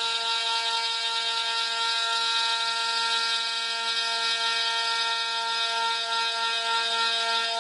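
High-speed router spindle of a CNC wood-carving lathe cutting into a turning wooden workpiece: a steady whining drone with the hiss of the cut.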